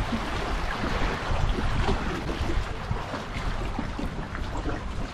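Wind buffeting the microphone over water lapping and sloshing; a steady, gusty rumble with no distinct events.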